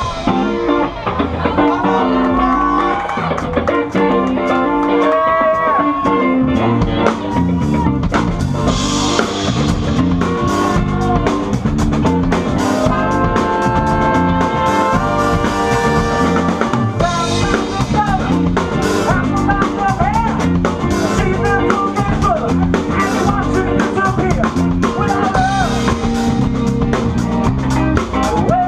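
Live band playing an instrumental passage, with a drum kit keeping a steady beat under pitched instrument lines, picked up on a camera's built-in microphone.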